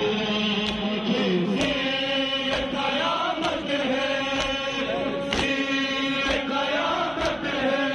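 Men chanting a noha (Shia lament) in unison, with rhythmic chest-beating (matam) landing as sharp slaps about once a second.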